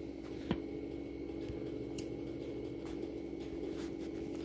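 A steady low hum with a few faint, scattered clicks and taps.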